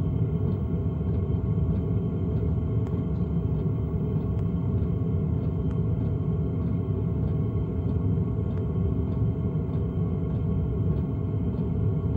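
LF Bros N2 Pro running under load at 1.4 kW: a steady low rumble with a faint regular tick or clunk about every 0.6 seconds, the clunking noise the owner is documenting at this power level.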